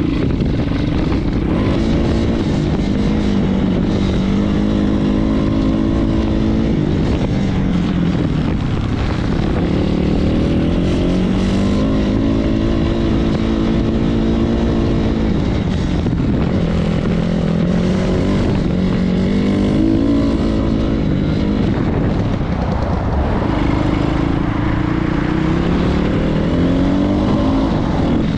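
150 cc BSE PH150e pit bike's single-cylinder engine under way, its pitch climbing and dropping back several times as it pulls through the gears. The rider finds it barely picks up speed however far the throttle is turned.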